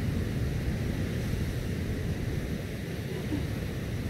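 Wind buffeting the microphone in a steady low rumble, over the wash of surf breaking on the beach.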